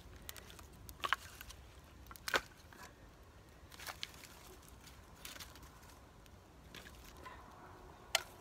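Dry sticks and split firewood knocking and clattering as they are laid by hand onto a campfire, a few sharp knocks spaced a second or more apart.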